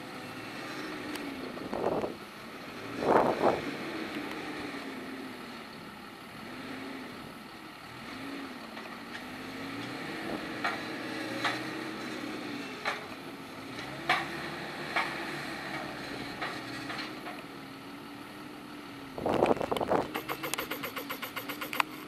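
Claas Scorpion telehandler's diesel engine running, its revs rising and falling as it works. There are a few sharp knocks around the middle, and short loud bursts of noise about two to three seconds in and again near the end.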